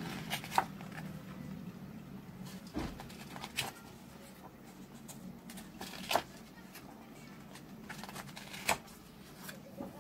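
Pages of a hardcover book being turned by hand: paper rustling, with several sharp flicks as the pages flip over, spaced a few seconds apart.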